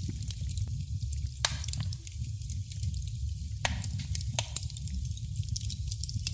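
Wood fire crackling in a fireplace: a steady low rumble of flames with scattered sharp snaps and a few louder pops.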